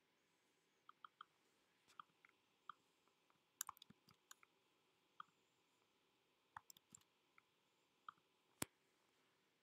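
Faint, scattered computer mouse clicks over near silence, about a dozen of them, with the sharpest click near the end.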